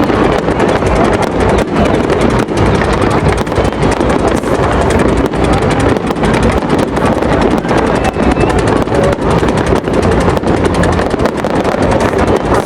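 Fireworks display going off continuously: a steady low rumble of bursts with many sharp cracks and pops, several a second.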